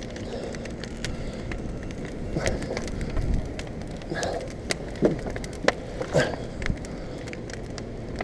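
Burning scrap-lumber fire crackling, with irregular sharp pops and snaps over a low steady rumble.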